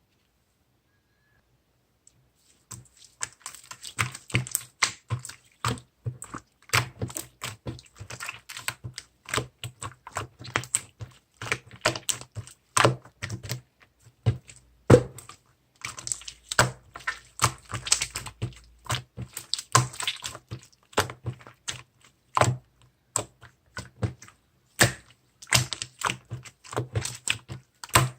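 Fast, irregular typing on a keyboard, with many key clicks a second. It starts about two seconds in, after a short silence.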